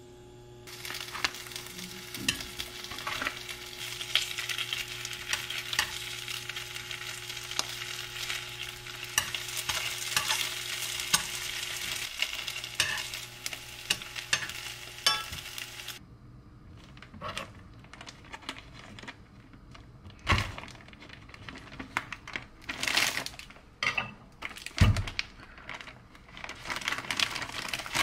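Round slices of meat sizzling and crackling in a frying pan, with a steady hum under it. It cuts off abruptly about halfway through, and then the plastic bag of a pack of flour tortillas rustles and crinkles in bursts as it is handled.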